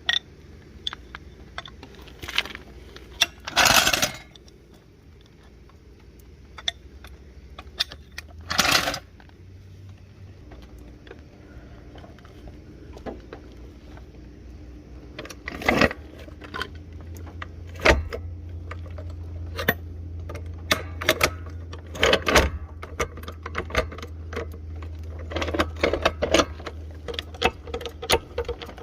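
Metal tools clinking and clattering in irregular handling sounds, with a few louder scrapes and knocks. A steady low hum comes in about a third of the way through.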